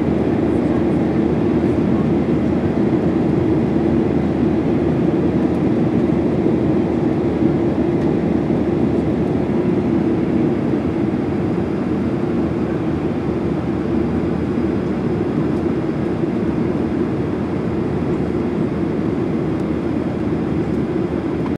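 Steady engine and airflow noise inside the cabin of a Boeing 737-800 climbing after takeoff, its CFM56-7B turbofans running with a strong low hum; it gets slightly quieter about halfway through.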